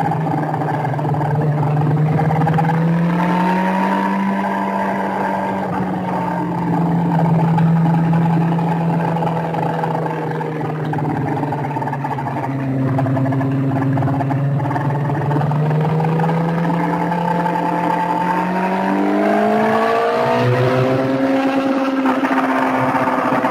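Sport motorcycle engine running hard at track speed, its pitch rising and falling slowly through the corners, with a gear change about twenty seconds in. Rushing wind noise on the on-board microphone under the engine.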